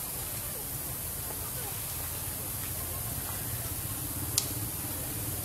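Steady outdoor background hiss with a low rumble and faint voices, broken by a single sharp click about four seconds in.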